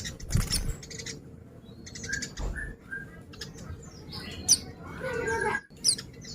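White-eye (pleci) chirping: short, quick, high-pitched notes and sweeps, broken up by small clicks.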